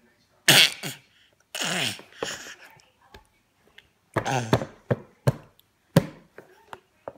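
A baby laughing in several short, loud, breathy bursts, some sliding down in pitch.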